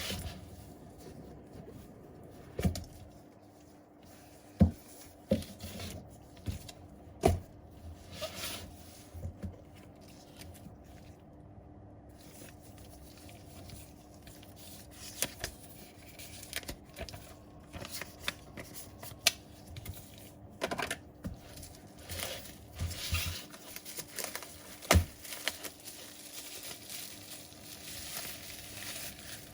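Small hand tools working on an iPhone 6s: scattered sharp clicks and taps against the phone, with stretches of scraping, crinkling and tearing.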